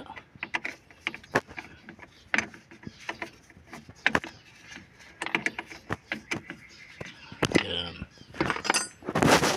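Scattered metal clicks and clinks of hand tools working the battery hold-down clamp and its nuts, with a louder burst of noise near the end.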